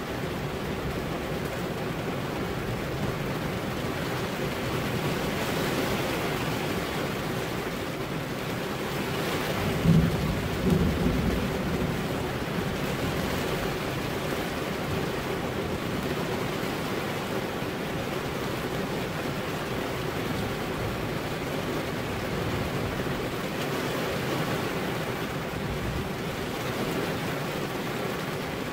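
Steady heavy rain, with a short burst of thunder about ten seconds in.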